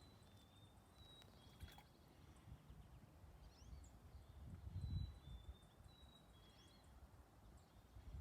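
Near silence outdoors: faint, short, high chirps of distant birds now and then, and a low rumble about five seconds in.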